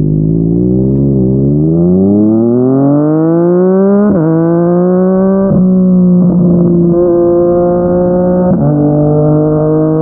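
Yamaha MT-09's inline three-cylinder engine through a Yoshimura R55 slip-on exhaust, accelerating with its note rising steadily for a couple of seconds. It then runs at a steady pitch broken by brief, sudden dips about four, five and a half and eight and a half seconds in, like quick upshifts, the last settling lower.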